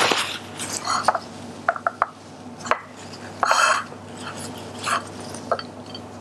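Paper towel wiping the rim of a plate, with scattered light clicks and taps of hands and shrimp against the plate; one longer rub about three and a half seconds in.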